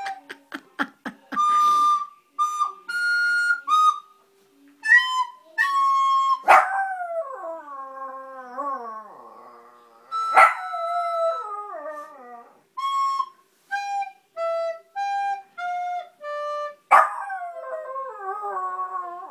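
Volpino Italiano dog howling along with a simple melody of short held notes. Three loud howls, about six, ten and seventeen seconds in, each slide down in pitch and waver off as the notes go on between them.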